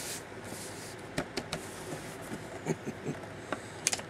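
Light handling noise: a dozen or so scattered clicks and taps, as the toy box is moved and the camera reached for, over the steady whir of a box fan.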